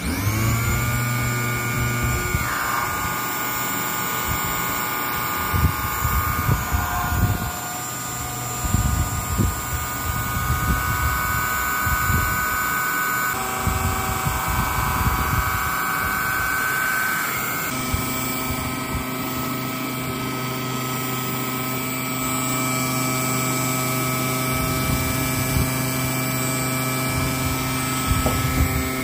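Small brushed DC motor whirring steadily as it drives a second motor through a rubber belt, with a few step changes in pitch as the speed shifts. It stops just before the end.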